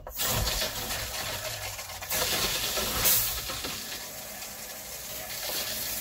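Water from a city water hookup rushing into the van's water lines as the newly installed plumbing is pressurized for a leak test, a steady hiss with louder surges about two and three seconds in.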